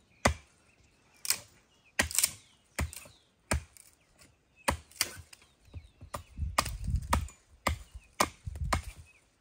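Irregular sharp blows on wooden stakes, about a dozen, as scrap lath stakes for a tomato trellis are worked and set.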